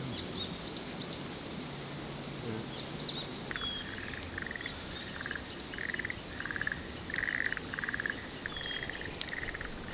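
Frogs calling from a pond: a run of short pulsed trills, about two a second, starting a few seconds in. A few quick high bird chirps come early, and faint crackles from a wood fire sound throughout.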